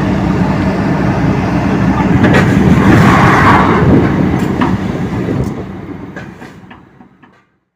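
Excavator's diesel engine running hard with a steady low drone, with sharp clanks from the steel plate and machinery as it is lifted, a louder swell of noise about three seconds in. The sound fades out near the end.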